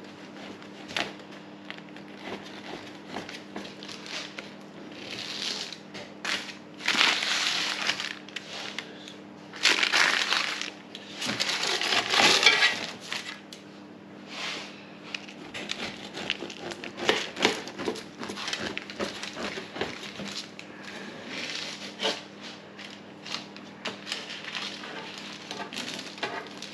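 A long knife sawing through a slab of stollen with a crisp flaked-almond topping, crunching in repeated strokes with small cracks and clicks, the longest and loudest strokes in the middle.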